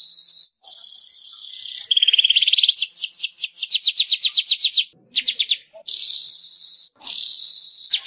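Weaver (manyar) singing in a run of phrases: wheezy, hissing buzzes alternate with fast chattering trills of short sliding notes, about seven notes a second. The longest trill comes about two seconds in, and a shorter, quicker one just after the middle.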